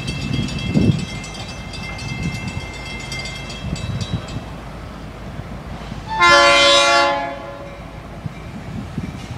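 Diesel locomotive's air horn sounding one short blast of about a second, a loud chord of several tones, about six seconds in.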